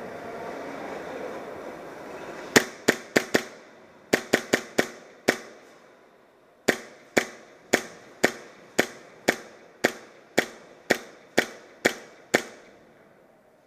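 Airsoft gun firing single shots, each with a short echo. An uneven string of about nine shots starts about two and a half seconds in, and after a short pause a steady run of about a dozen shots follows at roughly two a second.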